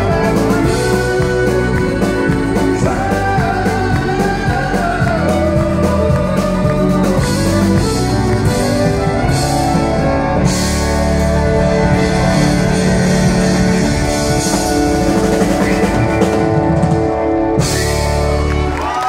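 Live country band playing amplified: electric guitar, keyboard, fiddle and drum kit, with singing.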